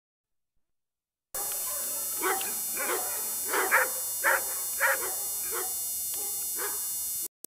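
Dobermans barking in a string of short barks, roughly two a second, over steady tape hiss. The sound cuts in suddenly about a second in and drops out just before the end.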